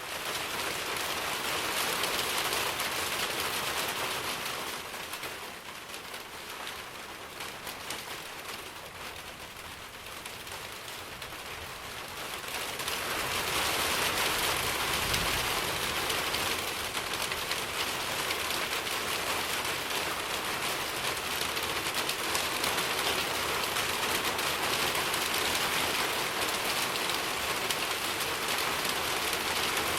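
Steady rain falling as a continuous hiss of drops. It eases for a few seconds early on, then grows heavier again about halfway through and stays that way.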